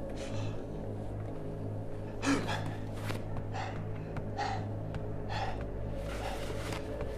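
A man breathing hard in short, panicked gasps, about one a second from about two seconds in, over a steady low drone.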